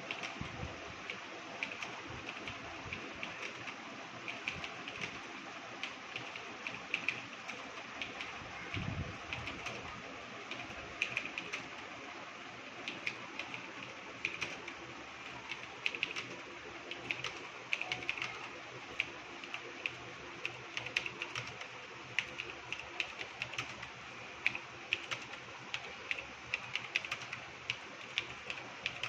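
Computer keyboard being typed on at a steady pace, a fast, irregular run of keystroke clicks over a faint steady hiss.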